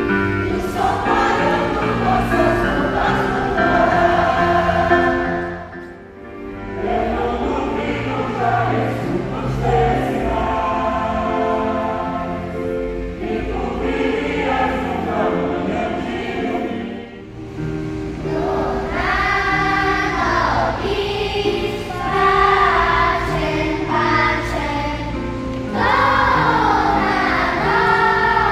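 A mixed adult and children's choir singing with electronic keyboard accompaniment, in sustained phrases that break off briefly about six seconds in and again around seventeen seconds in.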